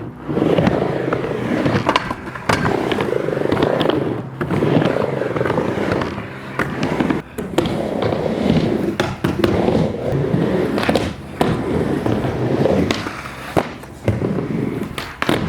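Skateboard riding back and forth on a mini ramp: the wheels rumble in repeated swells every second or two, broken by sharp clacks of the board and trucks hitting the coping and deck.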